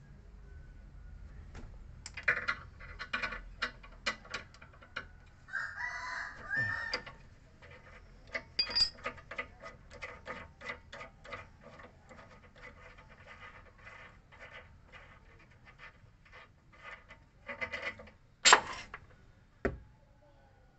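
Repeated metal clicks and clinks of a wrench working the nuts of a Ford EcoSport's front stabilizer link, ending in one sharp clack near the end. A chicken calls briefly about six seconds in.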